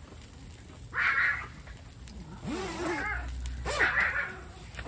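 A dog vocalising in three short sounds, the last two wavering up and down in pitch like whines.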